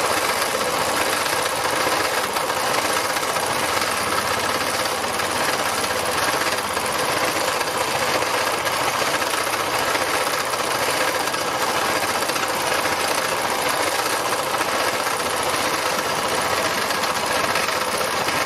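Domestic sewing machine running steadily at speed during free machine embroidery, its needle stitching rapidly up and down through layered fabric scraps under a free-motion foot.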